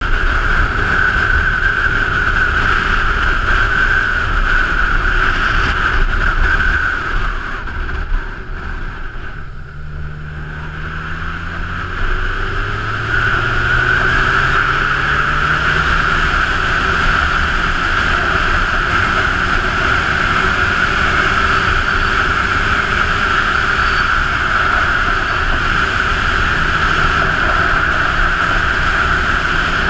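Honda CB1000R motorcycle's inline-four engine running at road speed under heavy wind rush over the bike-mounted camera. The engine eases off and the sound drops about seven seconds in, then it pulls away again from about ten seconds, its pitch rising as it accelerates.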